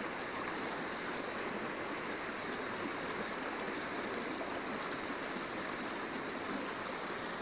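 Mountain stream running over a rocky bed: a steady, even rush of water.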